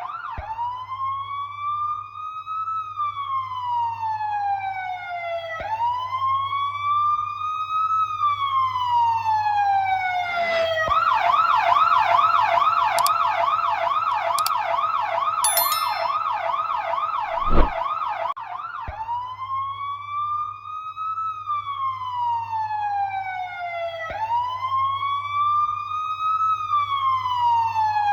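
Police siren in wail mode, its pitch rising and falling slowly, one cycle about every five and a half seconds. About eleven seconds in it switches to a fast yelp for roughly eight seconds, then returns to the wail. A low steady hum runs beneath it, and there is a single short thump near the end of the yelp.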